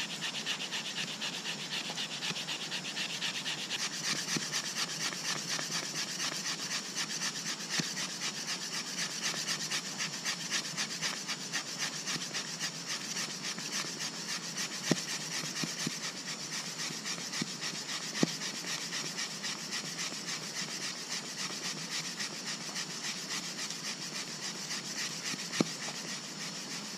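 Fire plough: a hardwood stick is rubbed rapidly back and forth along a groove in a softwood branch, making a fast rhythmic wooden scraping to make an ember by friction. A few sharp knocks of the stick stand out, the loudest near the end.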